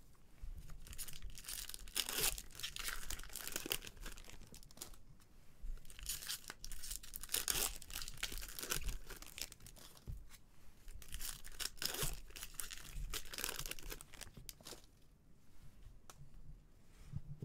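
Trading cards and their packaging being handled by gloved hands: rustling and tearing in repeated spells, quieter near the end.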